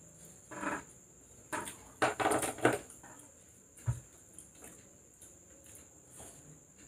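Spoon scraping and clinking against a plate of fried rice in several short bursts, loudest about two to three seconds in, with a dull knock about four seconds in as the plate is set down on the table.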